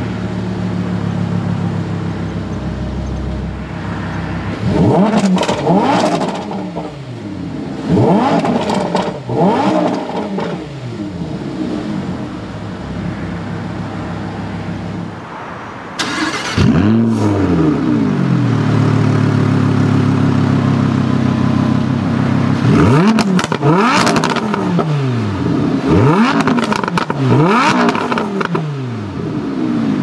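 Lamborghini Huracán LP610-4's 5.2-litre V10 with the optional racing exhaust, idling and blipped to short revs in Strada mode, in which the exhaust bypass valve opens only above 4,200 rpm. For the first half it is heard from inside the cabin, with a handful of blips. About halfway through it switches to just behind the tailpipes, where it idles steadily and is revved once, then in a quick run of blips near the end.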